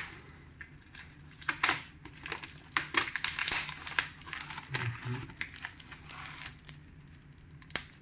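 Cardboard record mailer and its packing being handled and opened by hand: irregular rustling, crinkling and scraping.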